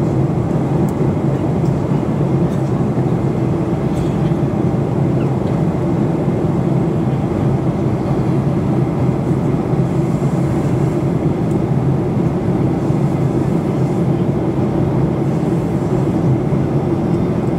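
Steady cabin noise inside a Boeing 737-800 in flight: a low, even drone from its CFM56 engines mixed with air rushing past the fuselage, heard from a window seat.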